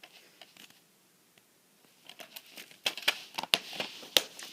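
A plastic DVD case being handled: after a quiet start, a string of sharp clicks and crinkling begins about two seconds in.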